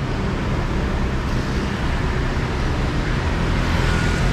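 Steady vehicle noise: an even, low rumble with hiss above it, and a faint high tone briefly near the end.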